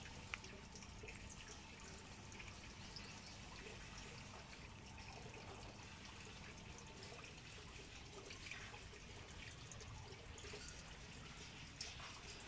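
Faint, irregular small wet clicks of a young sulcata tortoise biting and chewing leaves, over a low steady hiss, with a couple of sharper clicks just after the start.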